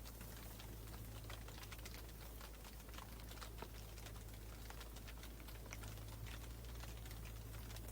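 Irregular light clicks and patter, several a second, over a steady low hum.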